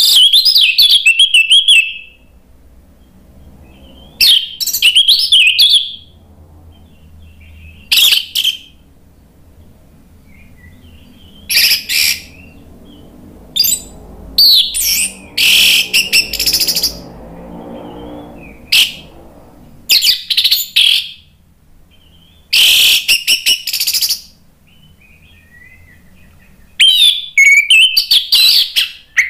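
Orange-headed thrush (anis merah) singing loudly and fully in about ten high, varied warbling phrases, each a second or two long, with short pauses between them.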